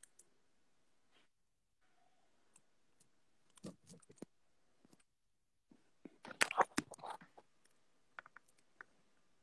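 Faint, scattered clicks and rustles from a smartphone being touched and moved. They come in two short clusters, about four seconds in and a denser one around six to seven seconds, with a few lone ticks after.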